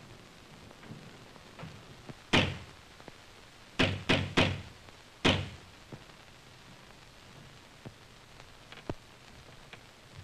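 Loud knocking on a heavy door: one knock, then three in quick succession, then one more, each with a short ring.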